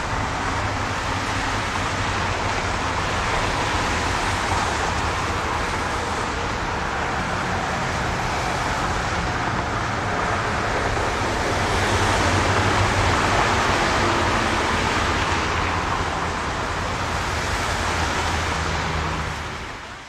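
Steady roar of highway traffic, a dense wash of tyre and engine noise with a faint low hum, swelling a little about twelve seconds in and fading out at the very end.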